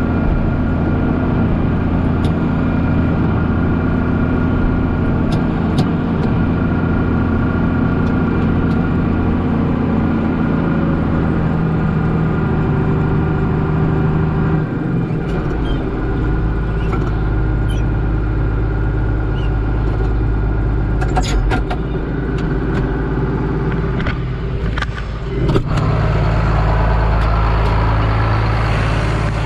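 John Deere 4055's six-cylinder diesel engine running steadily under load while pulling a small square baler through the windrow; the engine note drops about halfway through, with a few sharp clicks later on.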